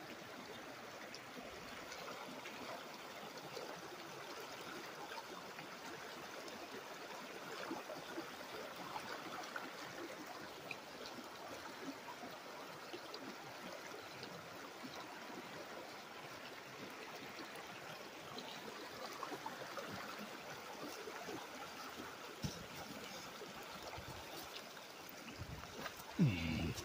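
Shallow mountain creek running low over rocks, with a steady trickling and burbling of water. A brief bump comes near the end.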